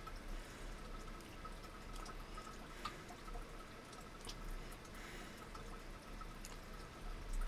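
Faint scattered clicks and light handling noise of a rotary fly-tying vise and hook being adjusted by hand, over a steady low hiss.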